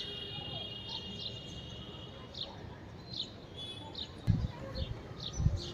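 Small birds chirping: short high chirps repeated every half second or so, over a faint steady outdoor hiss. Two low dull thumps come in near the end.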